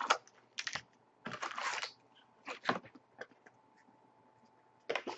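Foil-wrapped trading card packs crinkling and rustling in several short bursts as they are handled and set down on a table.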